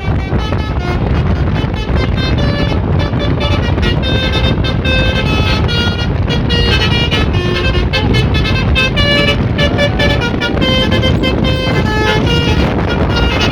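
Bus telolet horn playing a quick tune of short, changing musical notes, over a steady low rumble.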